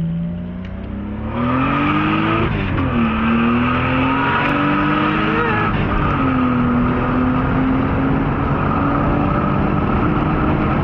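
Toyota Supra's 7M-GTE turbocharged straight-six pulling hard from inside the cabin: the revs climb, drop at a gear change about two and a half seconds in, climb again and drop at a second shift about six seconds in, then hold nearly steady. A loud rushing noise comes in about a second in and stays.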